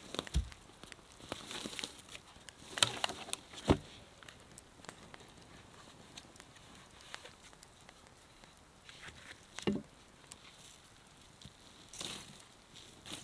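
Footsteps and rustling on a moss- and lichen-covered forest floor, with a few knocks of wood as a cut log and an axe are dropped onto the ground. The two loudest knocks come about three and four seconds in.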